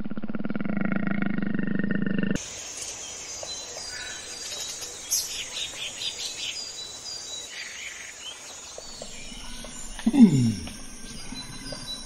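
A tiger growling for about two seconds, cut off abruptly, followed by birds chirping in forest ambience. Near the end come two loud, deep animal calls, each falling steeply in pitch, about two seconds apart.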